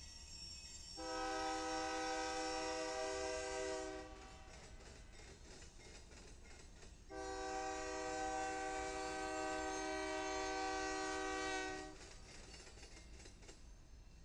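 Air horn of a BNSF GE AC4400CW freight locomotive sounding two long blasts, a short gap between them and the second longer than the first. Between and after the blasts the low rumble of the passing train carries on, with faint clicking of wheels over the rails.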